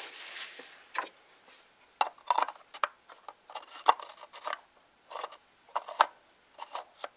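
Plastic oil filler cap being fitted onto a 2016 Mini Cooper S Countryman's valve cover and twisted shut by hand: an irregular run of short clicks and scrapes.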